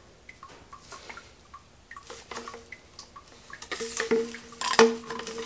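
PVC drain pipe and fittings being handled and fitted together: light plastic clicks and taps, then a few sharper knocks around four seconds in. A steady low tone enters about two seconds in.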